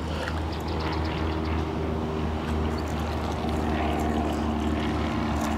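A steady mechanical drone, like a motor or engine running at a constant speed, holding one pitch throughout.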